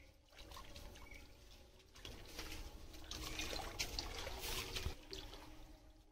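Pond water splashing and sloshing around a person wading waist-deep and working his hands at the surface. It is loudest in the middle.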